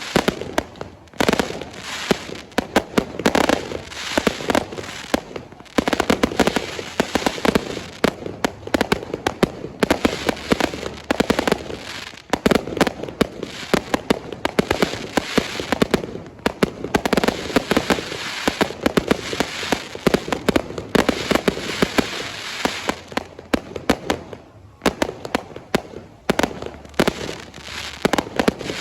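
Fireworks going off in a dense, rapid run of cracks and pops, with a few short lulls between volleys.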